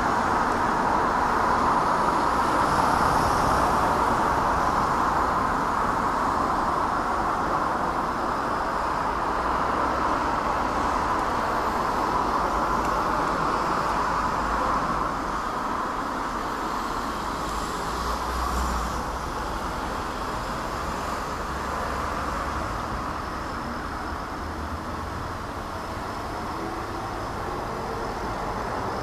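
Distant rushing roar of a four-engine Airbus A380 jetliner at cruising altitude, heard from the ground. It is steady and slowly fades as the aircraft moves away.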